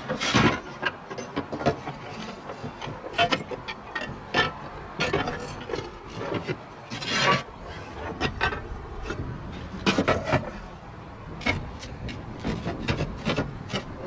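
Clay S-tiles clinking and scraping against each other as broken roof tiles are worked loose and lifted off by hand, in irregular knocks and scrapes with one longer scrape about seven seconds in.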